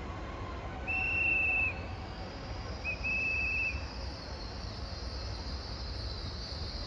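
A railway guard's pea whistle blown twice, two short trilled blasts on one high pitch about a second apart: the departure signal on the platform. A steady low rumble and a hiss run underneath.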